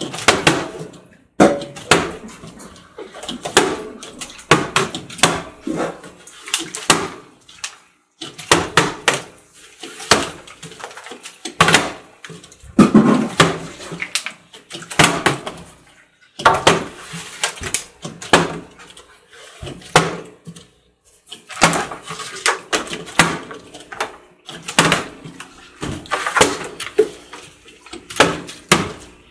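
Partly filled plastic water bottles flipped one after another and landing on a glass tabletop: a steady run of sharp thuds and clatters, roughly one a second.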